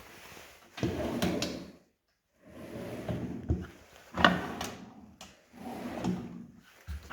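Something sliding and knocking, four short strokes of about a second or less, several ending in a sharp knock.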